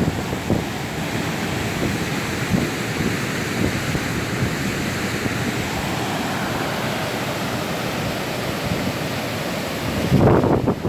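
Floodwater in a desert wash rushing steadily, with wind noise on the microphone. A louder burst of wind buffeting comes near the end.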